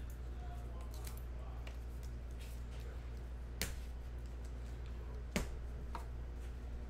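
A few short, sharp clicks and taps over a steady low electrical hum, the loudest click about five seconds in.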